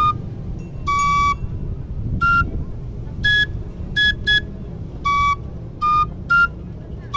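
A high-pitched flute playing a slow phrase of about nine short, separate notes, with three quick repeats of the highest note in the middle. A steady low rumble sits underneath.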